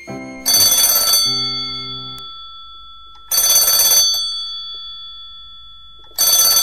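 Telephone ringing three times, about three seconds apart, each ring a burst of bright bell-like tones that fades away. The last low notes of a short musical phrase sound under the first ring.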